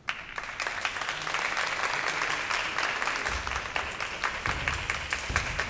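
Audience applause that breaks out suddenly and carries on steadily as dense, even clapping.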